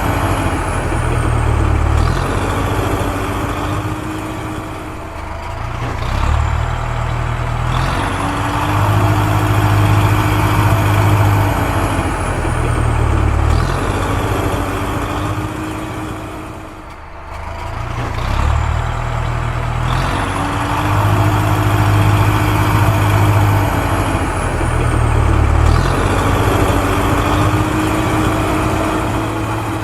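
Engine sound of a toy JCB digger: a steady low engine hum with a high whine that rises, holds and falls away every few seconds, the pattern repeating, with a brief dip about halfway through.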